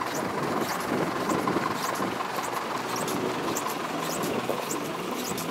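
A vehicle engine running steadily, with short high squeaks repeating through it.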